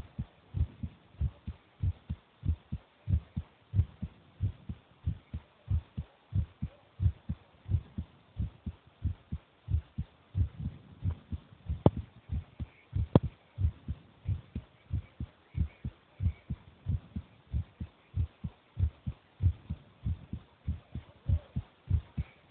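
A 10-year-old child's heartbeat: an even run of low thumps, about two a second. Two sharp clicks cut in near the middle.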